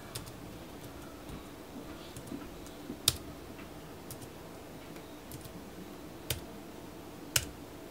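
A few single, sharp key clicks on an iWerkz folding Bluetooth keyboard, widely spaced, three of them louder: about three seconds in, near six seconds and near the end.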